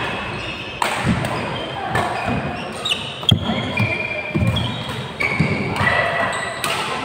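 Badminton rally: several sharp racket-on-shuttlecock hits, the loudest about three seconds in, with sneakers squeaking on the court floor and the thud of players' footfalls.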